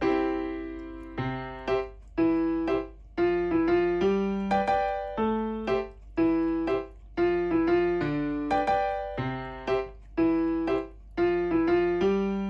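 Background piano music: a light melody of struck notes, each fading away, in a steady repeating rhythm.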